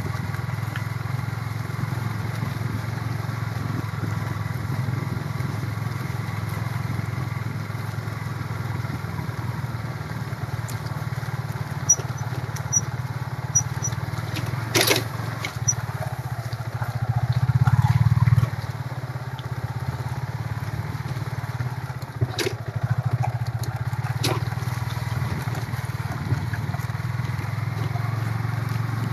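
Small motorcycle engine running steadily while riding along. The engine gets louder for a second or two about two-thirds of the way through, and there are a few sharp knocks.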